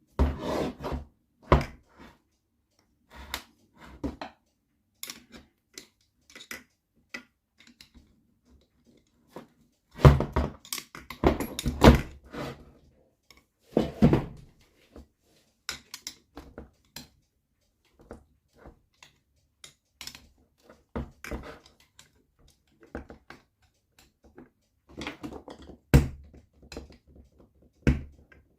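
Irregular knocks and taps of a hammer on the aluminium case of an NSU Quickly two-speed moped engine, struck around the joint to work the stuck case halves apart. A few blows are harder and louder, with quieter taps between.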